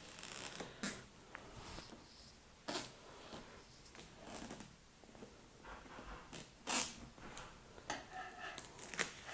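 A knife slicing through the seal on the sides of a MacBook Pro box: short scratchy rasps, loudest in the first half-second, followed by scattered brief strokes and rustles as the box is handled.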